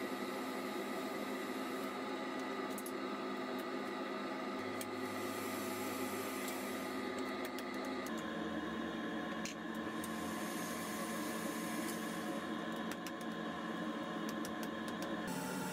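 Wood lathe running, a steady motor hum of several fixed tones with scattered light clicks. The hum changes abruptly about halfway through and again near the end.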